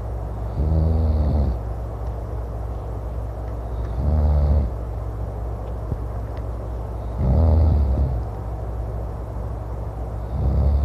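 A man snoring loudly, four snores about three seconds apart, each a buzzing, rattling breath lasting under a second. A steady low rumble continues underneath.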